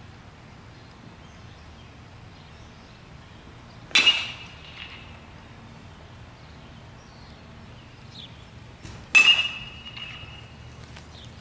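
Metal baseball bat hitting tossed balls: two sharp, ringing pings about five seconds apart, each dying away quickly.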